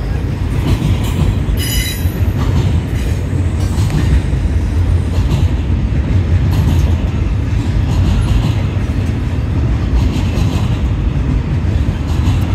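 Double-stack intermodal freight train's well cars rolling past, a steady low rumble of steel wheels on rail. A brief high wheel squeal comes about two seconds in.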